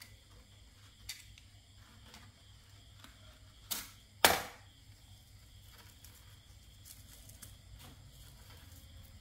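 Two sharp snaps about half a second apart, the second much louder, amid a few small clicks and faint scraping: a thin sand-cast wax candle strip being handled and broken.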